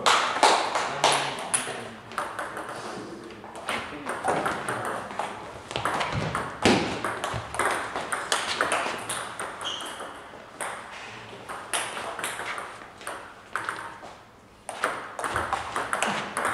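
Table tennis ball clicking off rackets and the table in a rally, quick sharp ticks one after another, with a brief lull near the end before play starts again.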